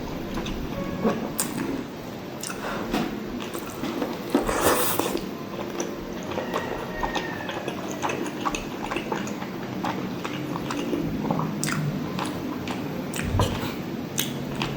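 Close-miked eating sounds: wet chewing, lip smacks and sticky clicks of a mouth working through soft, fatty soy-braised pork adobo and rice, with a brief louder stretch of chewing about four seconds in.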